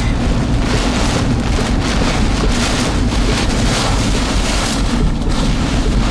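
Inside a moving car in a severe windstorm: a steady low rumble of the car on the road, with storm wind and rain hissing against the car in swelling gusts through the middle seconds.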